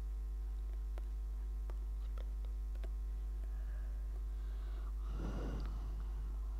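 Steady electrical hum picked up on a video-call microphone, with a few faint clicks in the first few seconds and a short breath or exhale into the microphone about five seconds in.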